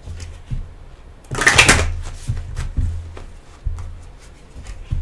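Tarot cards being handled: a short rustling burst of card shuffling about a second and a half in, among soft clicks of the cards, over a low steady hum.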